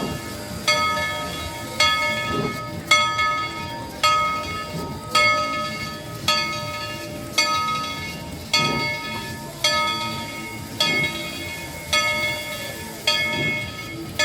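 Locomotive bell ringing steadily, about one stroke a second, each stroke ringing on and fading before the next, over a low rumble from the train.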